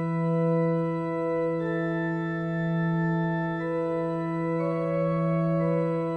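Background music: a sustained organ-like drone with a slow line of long held higher notes that change every second or two.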